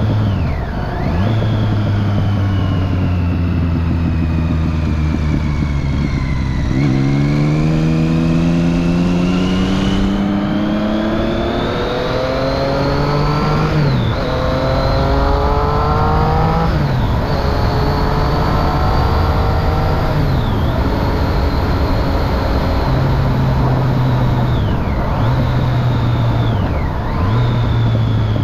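Triumph Street Triple 675's three-cylinder engine through a Remus Hypercone exhaust with its dB killer fitted, running steadily at first, then accelerating hard: a rising engine note broken by about three quick upshifts, then holding a steadier speed.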